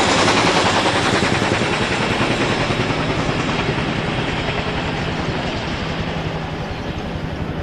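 Radio-controlled model aircraft in flight, its motor running with a fast, even pulsing and growing gradually fainter as it moves away.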